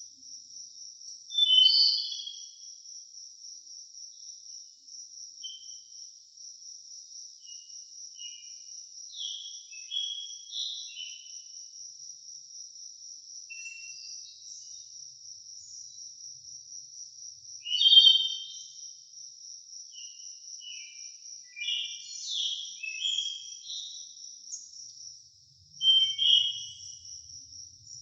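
Forest birds calling and chirping in short, varied phrases, with the loudest bursts about two seconds in, at about eighteen seconds, and near the end. Under them runs a steady high trill, typical of crickets or other insects.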